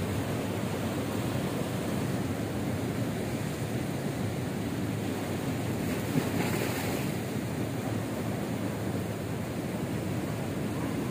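Ocean surf breaking and washing on a rocky shore, a steady rush with a louder wash about six seconds in, and wind on the microphone.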